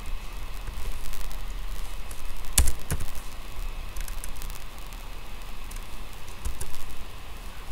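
Computer keyboard keys clicking now and then, with two sharper clicks about two and a half and three seconds in, over a steady low hum and hiss.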